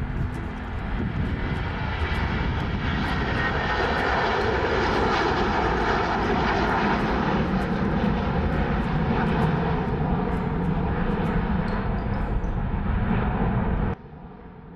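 Jet airliner engines roaring steadily, building over the first couple of seconds and cutting off suddenly near the end.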